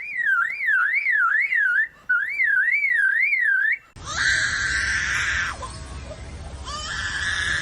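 Lyrebird mimicking a car alarm: a fast, rising-and-falling warbling whistle in two bursts. About four seconds in it switches to a harsher, noisy mimicked sound with a low rumble.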